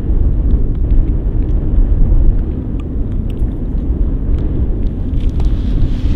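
Wind buffeting the microphone: a loud, gusting low rumble, with a few faint clicks.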